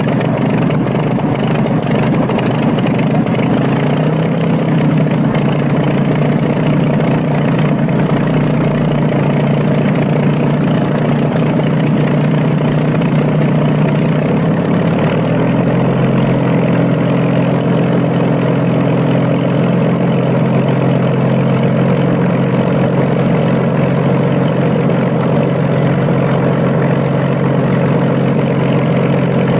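Old aircraft engine running steadily just after a cold start, with slight steps up in engine speed about four seconds in and again midway.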